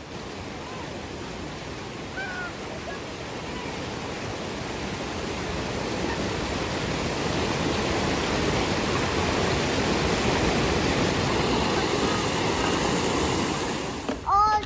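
Whitewater of a rocky mountain creek rushing over boulders: a steady hiss that slowly swells louder through the first ten seconds or so. A child's singing voice breaks in at the very end.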